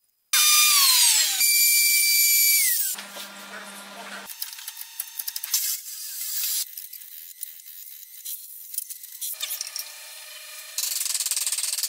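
Handheld wood router running at high speed, its whine falling in pitch twice as it slows. Then short bursts of hand-tool work on wood: chisel taps and scraping, and a fast rhythmic scraping near the end.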